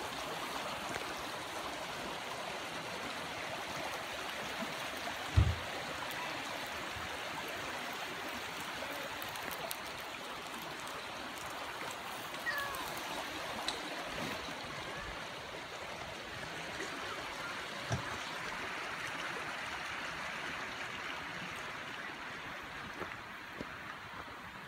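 A shallow, rocky creek rushing and rippling steadily over stones, with two brief low thumps, the first and louder about five seconds in.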